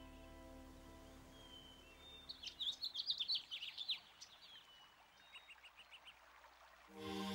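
Bird chirping in a fast twittering run of short high notes, then a shorter, fainter run, over a low hiss. Synthesizer music fades out at the start and a sustained chord swells in near the end.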